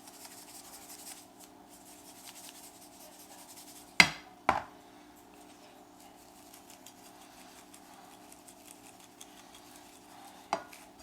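Kitchen handling while seasoning raw chicken breasts: faint light ticks and scrapes, with two sharp knocks about four seconds in and another near the end, over a low steady hum.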